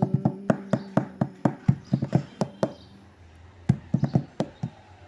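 Instrumental gap in a Hindi song: a hand drum plays a quick, uneven pattern of sharp strokes. The singer's last held note dies away right at the start, and a low held tone sounds under the first half.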